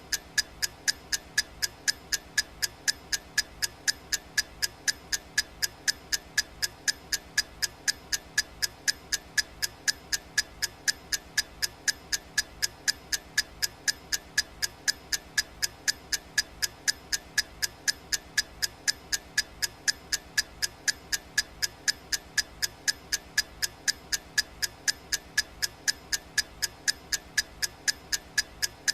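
Clock-style ticking of a countdown timer: sharp, bright ticks, evenly spaced at about three a second.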